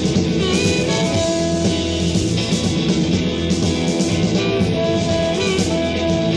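Live rock band playing an instrumental passage: guitars, one picking a bending lead line, over bass and a drum kit.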